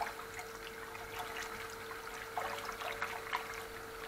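Whisk stirring thin cocoa milk pudding in a stainless steel pot: the liquid sloshes, with irregular small clicks and scrapes of the whisk against the pot. A faint steady hum runs underneath.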